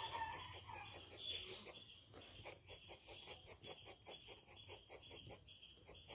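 A 4H graphite pencil scratching on sketchbook paper in quick back-and-forth shading strokes, about four or five a second. A faint bird-like call is heard in the background in the first second or so.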